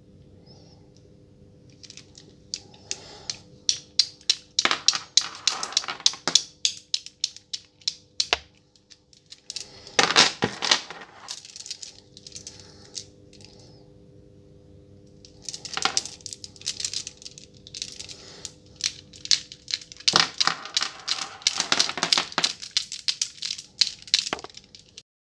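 Kuka (coquilla nut) prayer beads clacking against each other as fingers roll and flick them along the string: quick runs of sharp clicks in bursts, with a pause around the middle.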